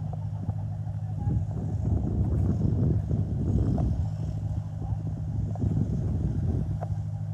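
A steady low engine hum, as of a motor vehicle running, with swelling rumble and a few faint clicks.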